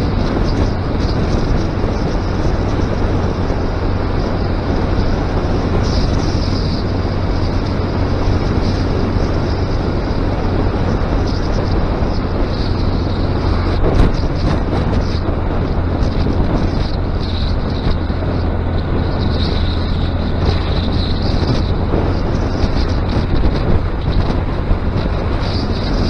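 Honda Grom's single-cylinder 125 cc engine running steadily while the motorcycle is ridden, with wind noise on the action camera's microphone. A single short knock sounds about fourteen seconds in.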